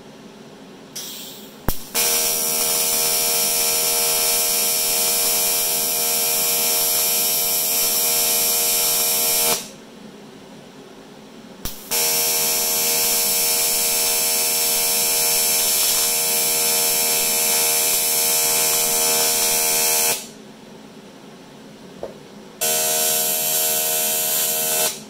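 AC TIG welding arc on aluminium tube and hull, a steady buzz. It runs in three long welds, from about two seconds in to nearly ten, from about twelve to twenty, and again from about twenty-three seconds, each starting with a sharp crack as the arc strikes.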